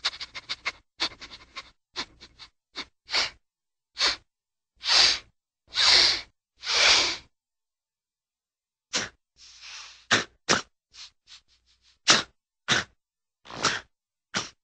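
A string of cartoon dog sound effects made of short, breathy, noisy bursts: a quick flurry at the start, three longer puffs in the middle, a pause of a second or two, then single sharp bursts about half a second apart.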